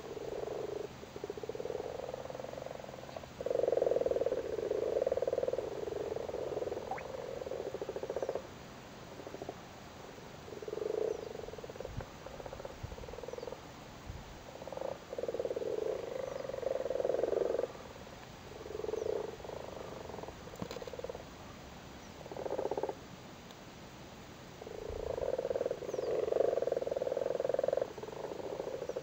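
Male common frogs croaking in a breeding chorus at their spawn. The low croaks come in bouts of one to several seconds with short pauses between.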